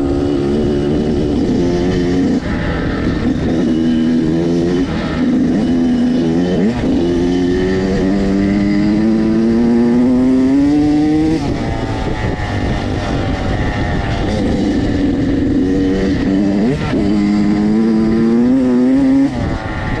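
Dirt bike engine running under way, rising steadily in pitch as it accelerates through a gear and dropping sharply when the throttle is shut, about halfway through and again near the end.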